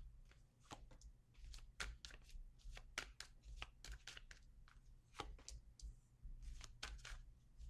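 Tarot cards being shuffled and handled: soft, irregular flicks and rustles of card stock, several a second, as a card is drawn.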